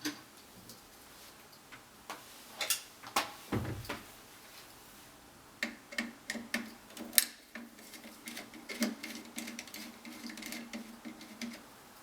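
Light clicks and taps from hands working with small parts and tools at an open electrical panel: a few isolated clicks early on, then a quicker run of clicks from about halfway through.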